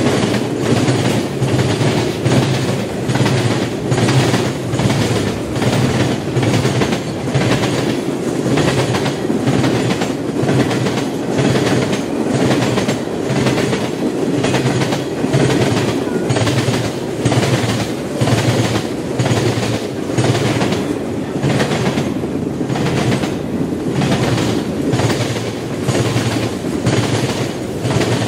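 Train cars rolling past, wheels clicking over the rail joints in a steady rhythm of a little more than one click a second over a continuous rumble.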